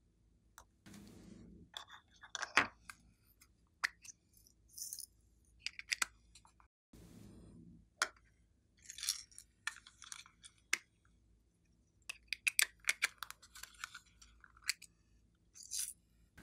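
Glitter and sequins being shaken out of small plastic containers onto slime, with scattered clicks and clinks of the containers being handled and set down, and short rattling bursts as the glitter pours.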